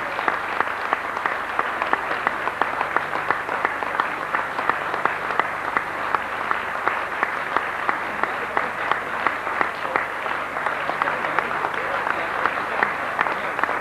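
Audience applauding steadily, with individual sharp claps standing out from the mass of clapping.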